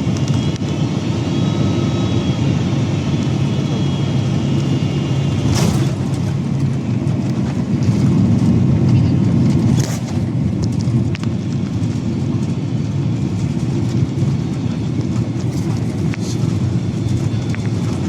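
Steady low rumble of a Boeing 767-300's cabin with its engines running, heard from a passenger seat while the aircraft moves on the ground. Two sharp clicks or knocks come about six and ten seconds in.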